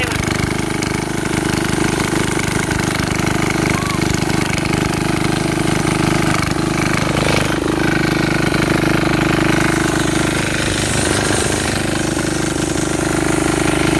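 Small diesel engine of a walk-behind rotary tiller running steadily at working speed while the tines churn soil, with a constant, even engine note.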